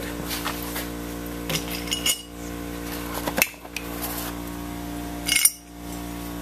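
Metal engine parts being handled: a few light clinks and knocks, the sharpest about two, three and a half and five and a half seconds in, over a steady hum.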